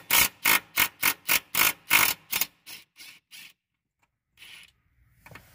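Impact driver on a swivel socket hammering at a rusted upper mounting bolt of a Tesla Model S rear air strut: a fast run of sharp strikes, about four a second, growing fainter after about two and a half seconds and stopping about a second later as the bolt breaks loose.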